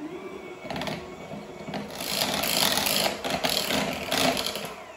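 Electric hand mixer running, its beaters whipping whipped cream and sweetened condensed milk. The motor's whine rises as it speeds up at the start, the mixing grows louder in the middle, and it eases off near the end.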